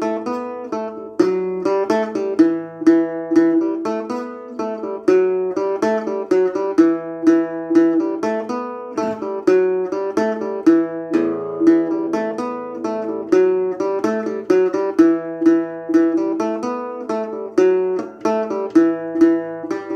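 Solo acoustic guitar in E dorian, standard tuning, playing a steady flowing line of picked notes, several a second, over ringing low bass notes.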